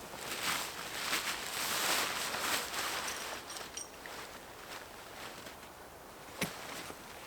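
Rustling and crunching with many small clicks, loudest in the first three seconds, then quieter, with a single sharp tap about six and a half seconds in.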